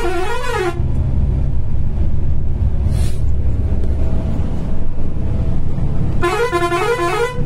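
A warbling vehicle horn, its pitch swinging up and down several times a second, sounds twice: for about the first second and again for about a second near the end. Underneath runs the steady low rumble of the Volvo 9600 bus's engine and tyres, heard from inside the cabin.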